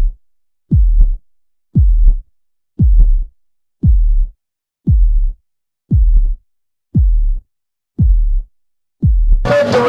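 Deep electronic bass booms of an intro logo sting, each dropping sharply in pitch, about one a second with silence between. Near the end, loud music cuts in.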